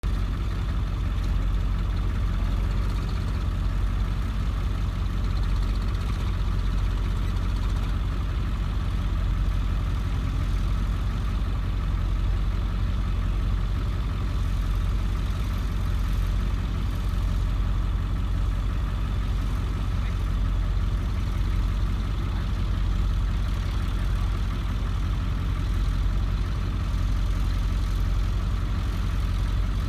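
Backhoe's diesel engine running steadily at an even speed, a deep drone with no revving.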